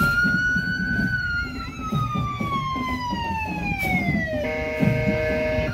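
Emergency vehicle siren wailing in a slow fall in pitch. About four and a half seconds in, it switches to a steady two-tone horn blast that lasts about a second. Low rumble underneath.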